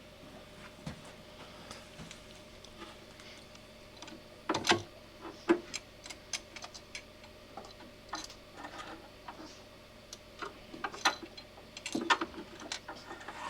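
Irregular clicks and taps of a long screwdriver working the screws that hold a Lay-Z-Spa pump in its housing, with a couple of louder knocks about four and a half and five and a half seconds in.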